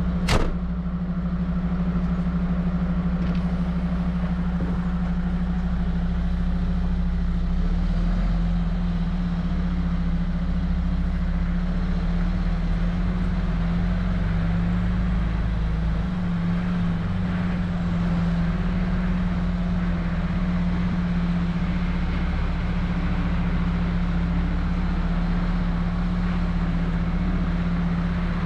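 Heavy tow truck on the move: a steady low engine and road drone. A single sharp click comes right at the start.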